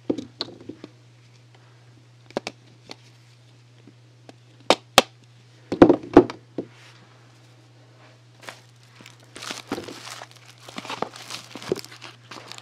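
Soap bars and their packaging handled: scattered light taps and knocks, two sharp clicks about five seconds in and a cluster of thuds just after. Crinkling and tearing of wrapping fills the last few seconds.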